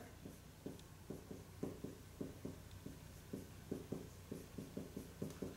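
Marker pen writing on a whiteboard: a quick run of short, faint strokes as two kanji are written.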